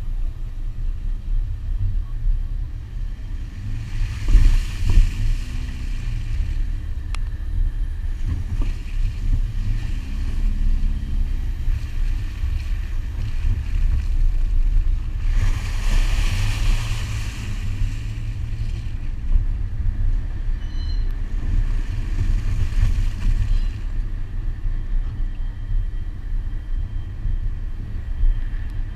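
2001 Subaru Forester with its flat-four engine driving across a wet sandbar: a steady low rumble of engine, tyres and wind buffeting the camera mounted outside the driver's window. Three washes of hiss come through, the loudest about halfway, as the car splashes through puddles.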